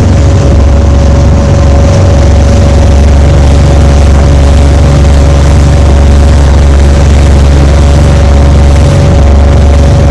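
A motorboat's engine running steadily at speed, a loud, unchanging drone with a steady hum.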